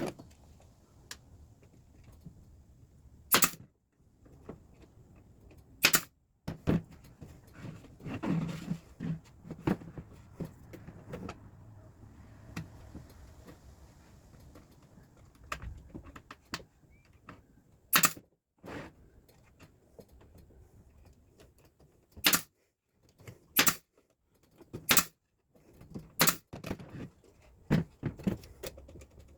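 Brad nailer firing brads into thin fence-picket wood, a dozen or so single sharp shots at irregular spacing that come quicker near the end, with quiet handling of the wood between them.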